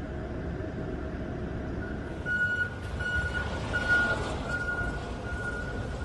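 Low, steady rumble of a running vehicle, with a high steady whine that starts about two seconds in and is broken by a few short gaps.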